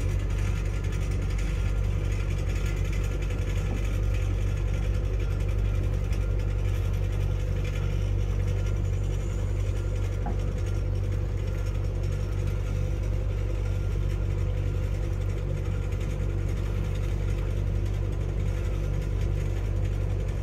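Boat engine running steadily with an even, low drone.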